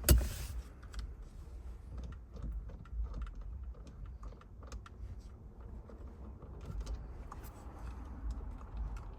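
A sharp click, then scattered light irregular clicks and taps from a 19 mm socket on a breaker bar being worked on a steering wheel's centre nut as it is backed off.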